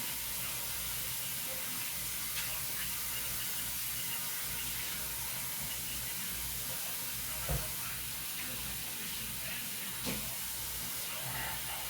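Chicken frying in hot oil in a Dutch oven, a steady sizzle, with three light knocks from cookware.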